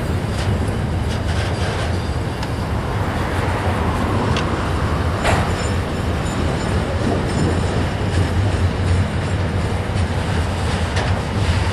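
Freight train's container wagons rolling past on the rails: a steady loud rumble of steel wheels, with a few sharp clanks, one about five seconds in.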